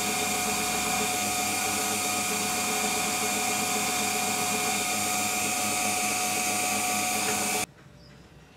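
Emco Unimat SL mini lathe in its vertical milling setup, its motor and spindle running steadily with a whine while a small cutter works a brass part in the vise. The sound cuts off suddenly near the end.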